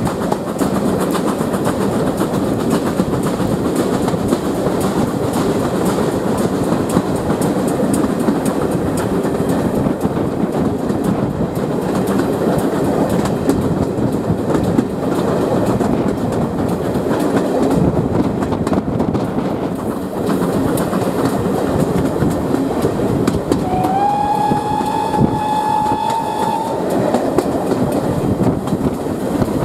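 Steady rumble and clatter of carriage wheels on the track, heard from an open carriage window. About 24 s in, the whistle of GWR Mogul steam locomotive 9351 sounds once for about three seconds: a single note that rises slightly at the start. It is sounded at a trackside 'SW' (sound whistle) board.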